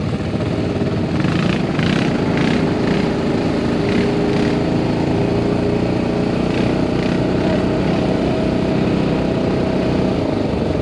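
ATV engine running steadily as the quad rides along.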